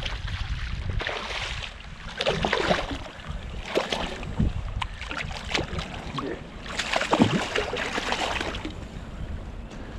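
A hooked striped bass thrashing and splashing at the water's surface in repeated bursts, the loudest about seven seconds in.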